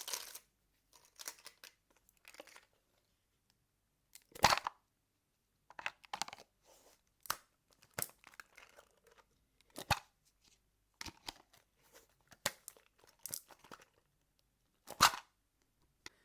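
A sweets can being opened and handled: a string of short crackling, tearing noises and sharp clicks with pauses between them, the loudest about four and a half seconds in and again near the end.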